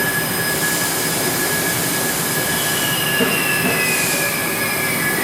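Haas VF-3 vertical machining center running: a steady high whine over a constant hiss, with a second whine gliding downward in pitch over the last two seconds.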